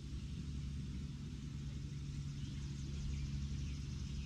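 Steady low background rumble with a faint constant hum underneath.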